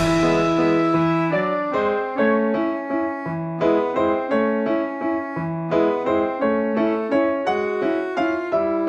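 Background piano music: single notes struck one after another over sustained lower notes, each fading after it is played.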